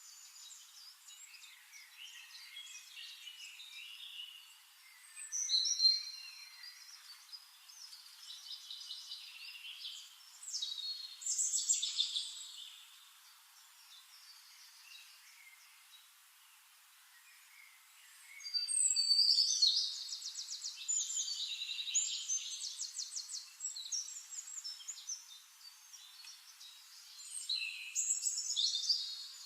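Birds singing: several bursts of high, rapid chirping and trilled phrases, loudest about nineteen seconds in, with quieter twittering between them.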